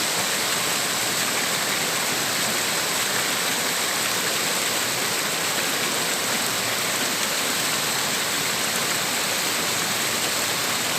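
Waterfall: water pouring over rocks in a steady, unbroken rush.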